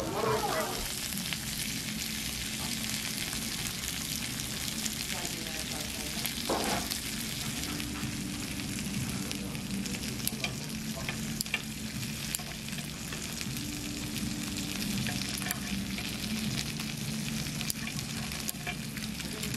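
Food sizzling steadily on a hot tabletop griddle, with scattered light clicks of metal tongs and kitchen scissors as grilled pork belly is cut.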